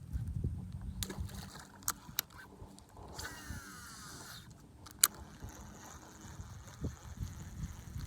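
Fishing reel during a cast: the spool whirs for about a second as line pays out, then a sharp click about five seconds in. Low knocking sounds run underneath throughout, with a few lighter clicks early on.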